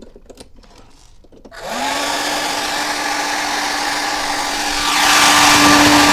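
Hair dryer switched on at its second speed: a few light clicks, then the fan motor spins up and runs steadily with a hum and rushing air, getting louder near the end. It runs smoothly with no rubbing or crackle, the reglued impeller no longer catching.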